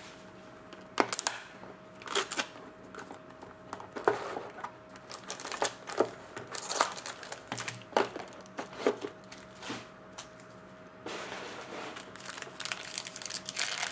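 Trading-card hobby box being handled and opened: a string of short cardboard knocks and taps as the box is set down, the lid lifted and the contents pulled out. About eleven seconds in this gives way to steady crinkling as the foil-wrapped card pack is handled.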